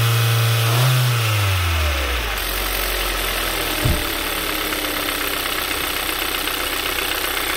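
Kia Soul's four-cylinder petrol engine, held at raised revs and then let go about a second in, falling back to a steady idle, with a single brief knock about four seconds in. The engine was being revved to load an ignition coil during a spark test.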